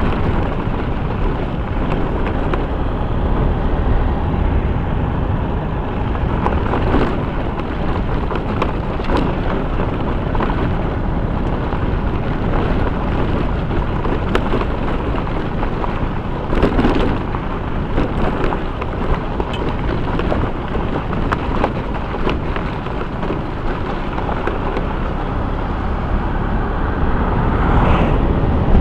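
Steady rumble of a vehicle driving over a rough gravel road, with tyre and wind noise and occasional sharp knocks from the bumpy surface.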